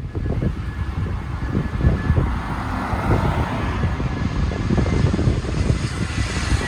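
Steady low rumble of a vehicle in motion, with a faint thin high whine above it.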